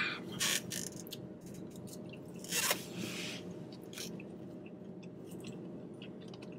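Close-up chewing of food, with small wet clicks of the mouth and a louder crunchy bite about two and a half seconds in.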